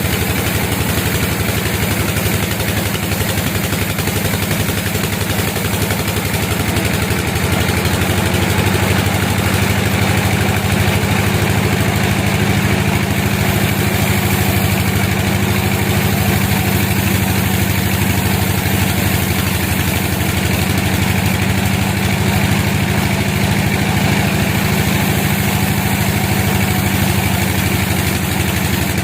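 A sawmill's engine running steadily at an even speed, a loud low drone that does not change.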